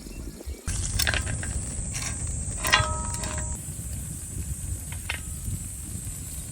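A metal utensil clinks against camp cookware among a few small clicks. One sharper strike rings briefly, over a steady high hiss.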